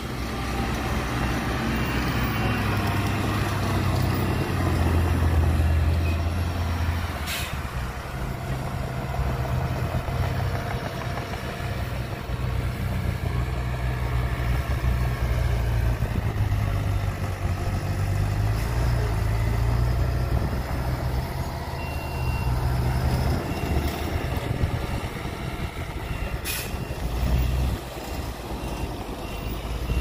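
Diesel engines of a dump truck and a Komatsu D20A crawler bulldozer running, a steady low drone that swells and eases as the machines work. Two brief sharp sounds cut through it, about a quarter of the way in and near the end.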